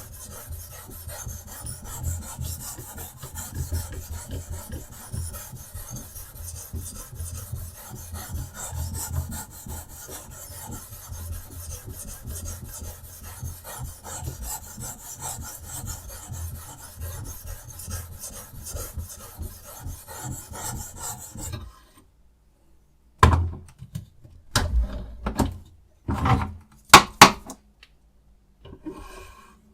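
Whetstone of a guided-rod knife sharpener rubbing back and forth along a knife blade in rapid, continuous strokes. It stops about 21 seconds in and is followed by a few separate loud knocks and clacks.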